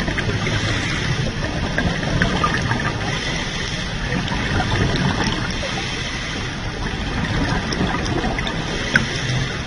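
Underwater sound of scuba diving: continuous bubbling and a low rumble of water around a diver's breathing apparatus, swelling and easing slightly, with a sharp click about nine seconds in.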